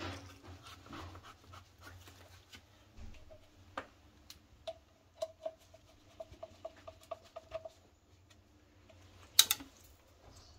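Scattered clicks and light metallic ticks of hand work on a washing machine drain pump and its casing, with a run of quick ringing ticks in the middle and one sharp, loud click near the end.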